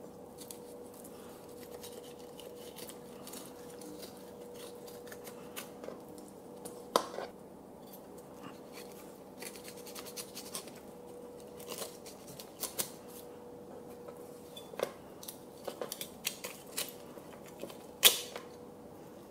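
Kitchen knife cutting a blue runner fillet off the backbone on a wooden cutting board: small scraping and clicking as the blade works along the bones, with two sharp knocks, about seven seconds in and near the end. A faint steady hum underneath.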